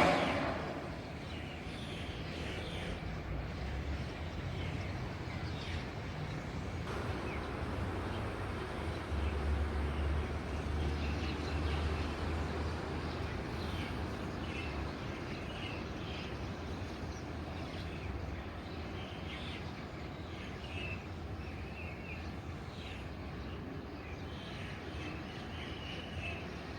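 Scattered short bird chirps over a steady low rumble. The rumble swells for a few seconds around the middle.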